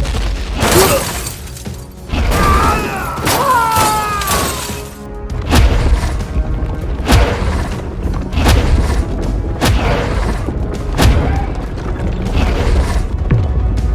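Background music with repeated heavy booming impacts, one every second or two, and a brief wavering, gliding squeal about three seconds in.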